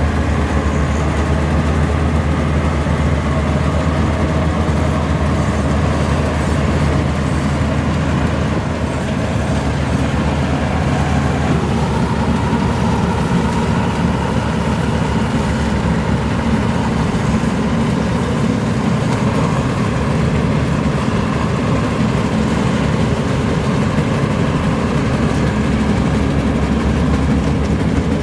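Maxxi Bimo NDR102L combine harvester running steadily with a low engine drone. About twelve seconds in the sound shifts as a higher, steady hum comes in over the drone.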